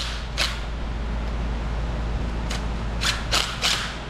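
Several short metallic clicks and clinks of a cordless impact driver and socket working on the flywheel bolts, a few in quick succession near the end, over a steady low hum.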